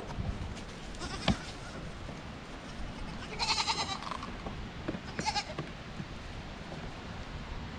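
A goat bleating: one long wavering bleat about three and a half seconds in, then a shorter one about a second later. A sharp knock comes shortly before.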